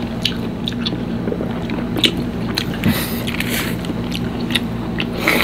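Close-miked chewing and lip smacking of boiled pork and cabbage eaten by hand, with scattered short wet clicks and a longer squishy, hissy stretch about three seconds in, over a steady low hum.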